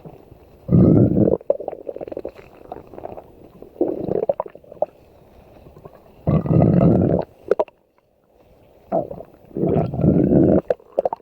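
Stomach growling: a series of loud, low rumbles, each lasting about a second, with softer gurgles in between.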